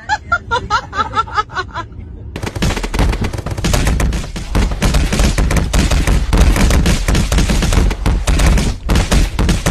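A loud, dense barrage of rapid sharp cracks, starting about two seconds in and going on without a break to the end. Before it come short pitched calls, about six a second.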